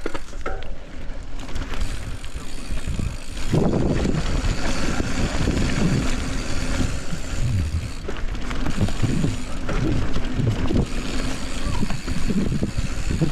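A 27.5-inch mountain bike rolling down a dirt singletrack: tyre and trail noise with wind rushing over the microphone. It gets markedly louder about three and a half seconds in as the bike picks up speed on the descent.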